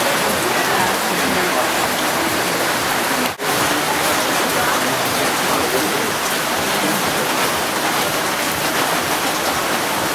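Heavy tropical rain falling steadily on broad leaves and ground, a dense even hiss, with a momentary break about three seconds in.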